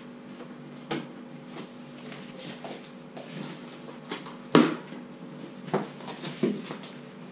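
A large cardboard box being handled and opened at its taped top: a few scattered knocks and scrapes of cardboard, the loudest about four and a half seconds in.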